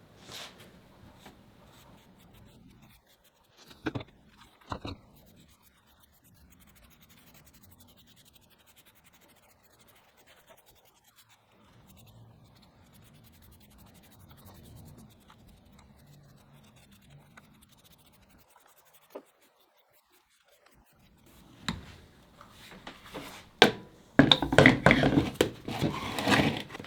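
Faint scratching and rubbing as polyurethane is applied to a turned wooden handle, with a few sharp knocks. Loud metal-and-wood clattering and handling noise starts near the end and is the loudest sound.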